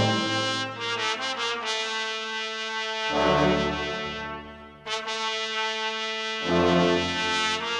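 Background music: sustained chords that change about every three seconds, with a brief dip in level about four and a half seconds in.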